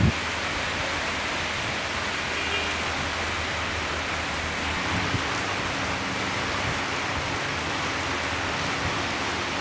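Steady rain falling, an even hiss of drops with no let-up, with a single dull thump right at the start.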